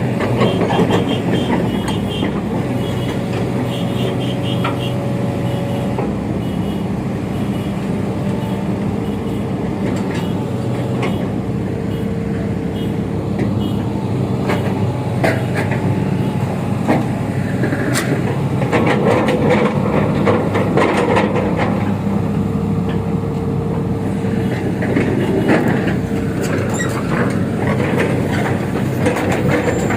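A crawler excavator's diesel engine running steadily, with sharp metal clanks and knocks scattered through the second half.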